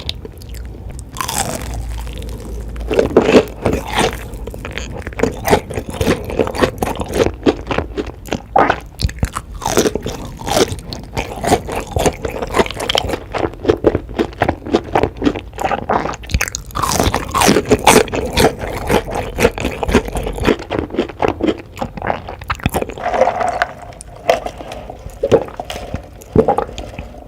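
Close-miked eating: crunchy bites and chewing, a dense, irregular run of crackles and clicks throughout.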